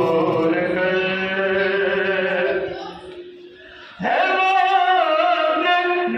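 Male voices singing a devotional chant in praise of Ali in long, held notes. The singing fades for about a second near the middle, then a new phrase comes in sharply.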